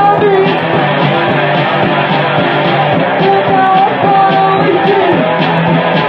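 Home recording of a rock song: guitar and band playing steadily, with a melody line that bends up and down in pitch.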